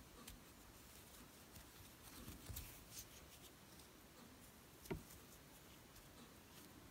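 Faint rustling and light clicks of a metal crochet hook working acrylic yarn, with one sharper click about five seconds in.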